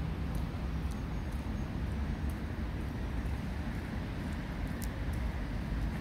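Steady low rumble of outdoor background noise, with a few faint high ticks now and then.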